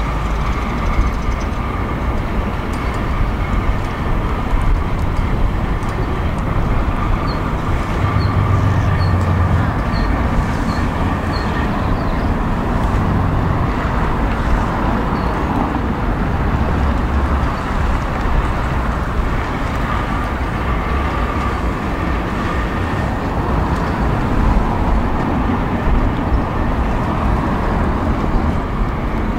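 2005 BMW 745Li's 4.4-litre V8 on the move: steady engine and road noise with a low rumble. A run of faint high ticks, about two a second, comes between about a quarter and a half of the way in.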